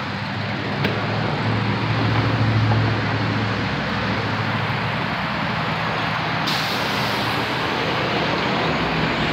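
Car engine running with tyre and road noise, heard from inside the cabin as the car pulls into a parking lot. A steady low hum swells a little a couple of seconds in, and a brighter hiss joins about six and a half seconds in.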